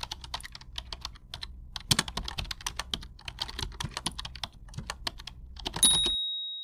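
Typing sound effect: quick, irregular key clicks, ending about six seconds in with a single high bell ding that rings out.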